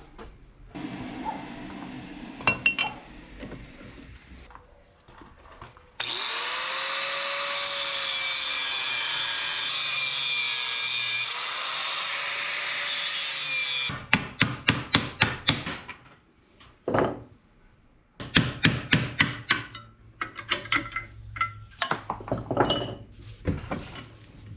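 Workshop metalworking: a power tool runs steadily for about eight seconds with a slight rise and fall in its pitch. Then come two runs of quick, sharp strikes with a short lull between them.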